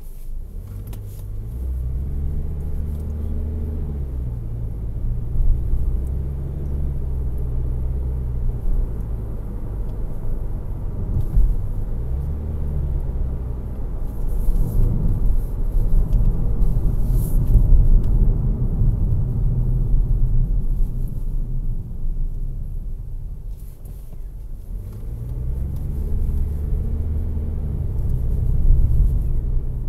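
Toyota Corolla Hatchback's four-cylinder engine and road rumble heard from inside the cabin as the car pulls away and drives; the engine note rises as it accelerates about a second in, again near the middle, and once more near the end.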